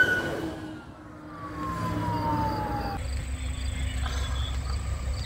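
Fire engine siren winding down, its wail falling slowly in pitch and fading for about three seconds. It then cuts to a steady low rumble with faint high chirps.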